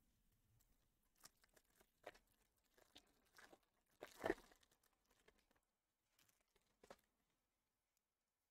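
Faint crinkling and tearing of trading-card pack wrappers as packs are opened: a handful of short, scattered rustles, the loudest about four seconds in.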